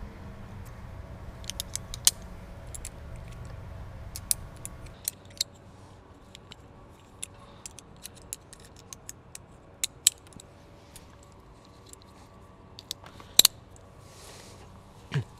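Metal rigging hardware, carabiners and pulleys, clinking and clicking as they are clipped and set along a rigging rope. Irregular sharp clicks throughout, with one louder clack near the end.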